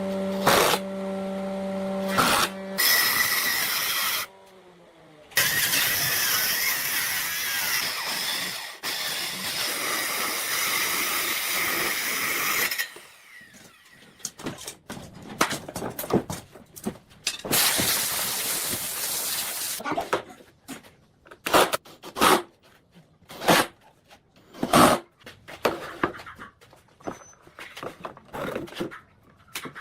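Woodworking power tool: a motor humming steadily, then loud cutting noise with the motor briefly winding down in between. From about halfway through, a run of irregular sharp knocks and taps.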